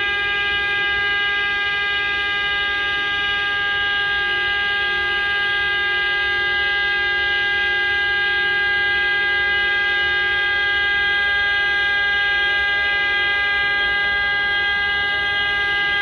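Electric hair dryer running at a steady speed: an unchanging pitched hum over the rush of blown air.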